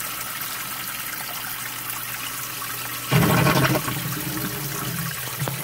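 Submersible sump pump running in its basin, pumping water out with steady churning and a faint hum. About three seconds in the sound turns suddenly louder and rougher as the basin empties.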